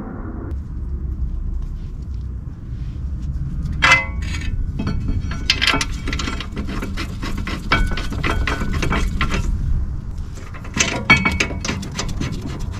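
Metal clinking and rattling as a steel front brake caliper carrier is fitted over the disc of a Smart Fortwo and its bolts are started by hand. One ringing clink comes about four seconds in, followed by quick runs of clicks and clinks and another burst near the end, over a steady low rumble.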